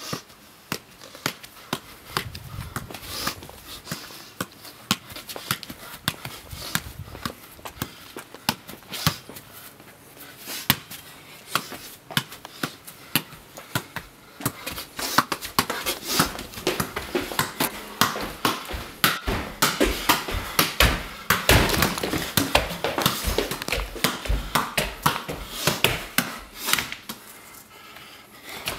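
A soccer ball being juggled and kicked with bare feet: a long, irregular run of taps and thumps, busier and louder in the second half.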